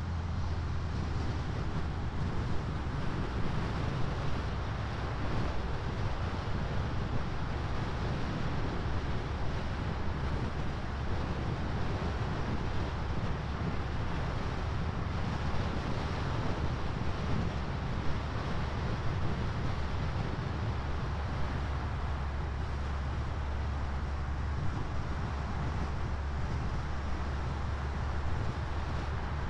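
Steady road noise of a car driving along a highway: a low tyre rumble with a rush of wind.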